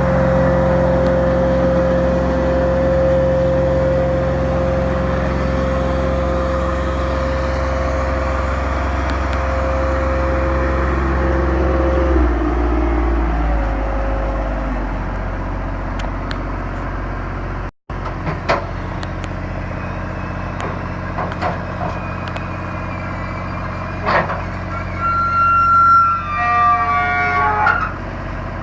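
Ditch Witch FX30 vacuum excavator's engine running steadily with a high whine for about the first twelve seconds, then dropping to a lower, quieter run. Near the end a few clicks and a short run of high-pitched tones sound over the running engine.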